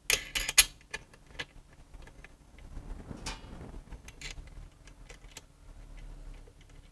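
Small metal parts clicking and clinking as the actuator's mounting clamps and nuts are fitted by hand onto the valve neck. A quick cluster of sharp clicks comes at the start, a brief scrape about three seconds in, and scattered light ticks after that.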